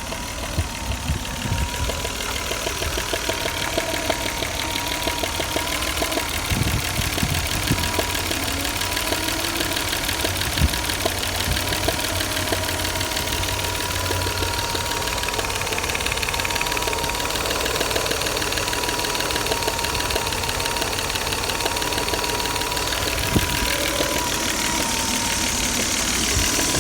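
Alfa Romeo 164 V6 engine running hot and steady, with a thin high whine that wavers slightly in pitch and a few sharp ticks now and then. The owner hears this strange sound only when the engine is warm; from cold it runs without it.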